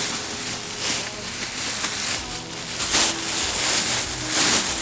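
Thin plastic bag crinkling and rustling in uneven scrunches as used bath towels are stuffed into it.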